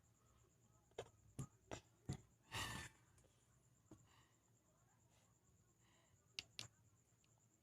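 A quiet room with a few faint, light clicks and knocks: four in quick succession in the first couple of seconds, a brief rustle just after, and two more near the end.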